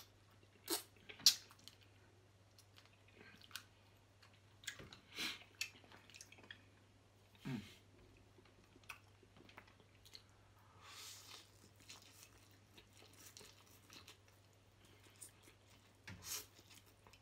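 A person chewing mouthfuls of spaghetti and seafood close to the microphone, with scattered short clicks and smacks a second or two apart and a louder slurp of noodles near the end. A faint steady low hum runs underneath.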